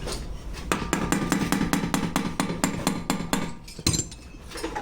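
Rapid, even metal clicks or light taps from a hand tool on an engine's water pump cover, about six a second for roughly three seconds, then one sharper knock just before four seconds in.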